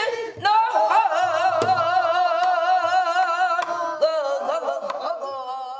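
Korean folk song (namdo minyo) singing: a voice holds long notes with a wide, heavy vibrato, breaks off about four seconds in, then takes up a steadier held note that fades near the end.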